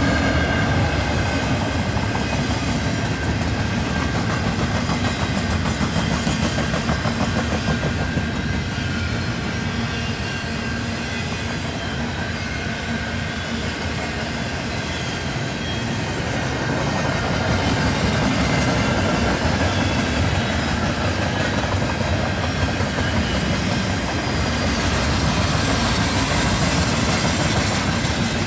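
Double-stack intermodal freight train's well cars rolling past, a steady run of wheel-and-rail noise with clickety-clack as the wheels cross rail joints.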